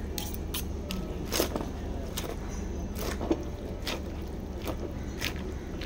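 Metal spoon and fork tossing American chop suey in a ceramic bowl: scattered clinks and scrapes of the cutlery against the bowl, the two sharpest about a second and a half and three seconds in, over a steady low hum.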